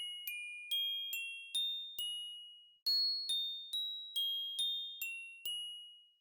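Intro music: a simple melody of high, bell-like chime notes, about two notes a second, each struck and then fading, in two phrases with a short pause between them.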